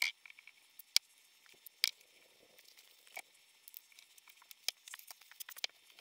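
Scattered small metallic clicks and light taps as a steel wrist-pin circlip is worked by hand into its groove in the piston of a Rotax 493 twin two-stroke.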